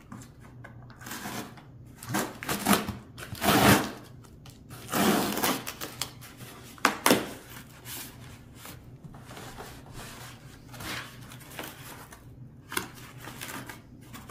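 Packing tape ripped off a cardboard box in several short pulls, with cardboard rustling and scraping between them as the box is opened.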